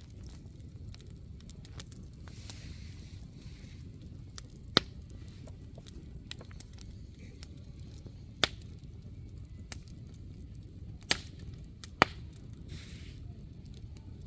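Wood bonfire burning: a low steady rumble with a sharp crack or pop every few seconds as the wood splits.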